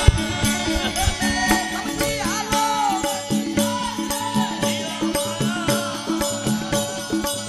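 Men singing a devotional Aaradhi bhajan to small hand cymbals (manjira) struck in a steady rhythm, over the drone of a long-necked tambura.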